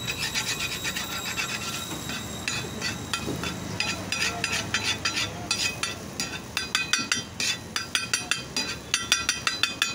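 A metal spatula rapidly chopping and scraping egg bhurji on a flat iron tawa, making quick metallic clinks and scrapes several times a second. The strokes get louder over the last few seconds.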